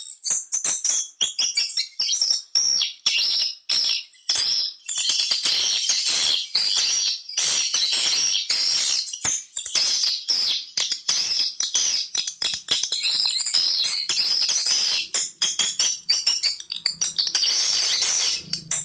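Swiftlet lure call played through a speaker: a dense, unbroken chatter of high twittering chirps from swiftlets, made to draw the birds into a swiftlet house.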